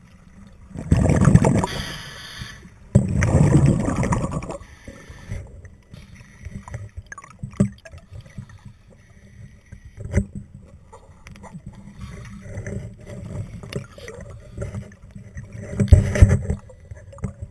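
Scuba diver breathing out through a regulator underwater: two long rushes of exhaust bubbles in the first few seconds and another near the end, with quieter water noise and a few light knocks between.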